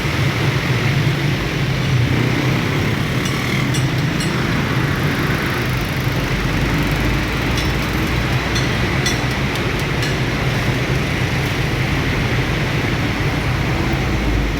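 Train passing through a railroad level crossing: a steady, loud rumble with groups of sharp clicks.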